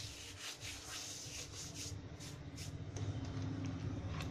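Dried fenugreek leaves (kasuri methi) being crushed between the palms: dry rustling rubs repeating about three times a second, thinning out after a couple of seconds. A low steady hum underneath grows louder near the end.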